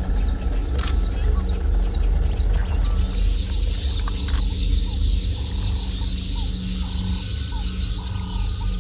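Birds chirping in a dense chorus of fast, short, high calls, with a run of lower notes repeating about twice a second in the second half, over a steady low rumble.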